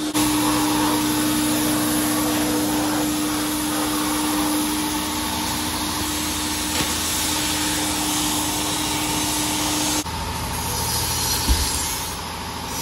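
Abrasive blast cabinet running: a steady rush of air-driven abrasive and dust-collector noise with a steady hum, sandblasting glass to frost it. About ten seconds in the hum cuts out abruptly and a quieter rush goes on, with one sharp knock shortly after.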